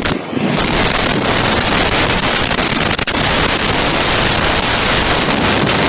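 Strong storm wind blowing hard across a security camera's microphone: a loud, steady rush of wind noise.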